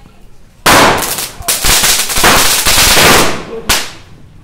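Firecrackers packed inside a burning effigy going off: after a short lull, a sudden loud string of rapid cracks starts under a second in and runs for about two and a half seconds, with one more crack near the end.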